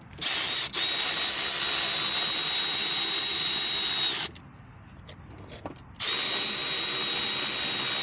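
Cordless electric ratchet running, tightening the U-joint strap bolts on a driveshaft: a steady whir with a thin high whine for about four seconds, a pause of about two seconds, then a second run.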